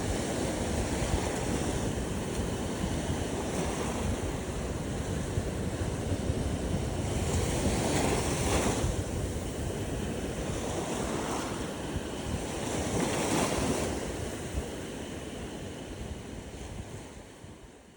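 Ocean waves washing onto a beach, with wind rumbling on the microphone. Two waves swell louder about eight and thirteen seconds in, and the sound fades out near the end.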